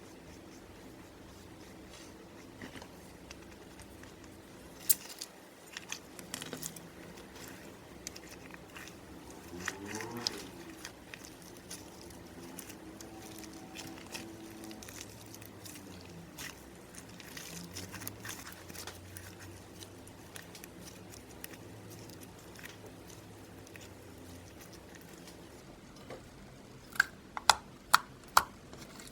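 Slime being squished and mixed by hand, with soft sticky crackling and scattered sharp clicks and pops, a quick run of four pops near the end.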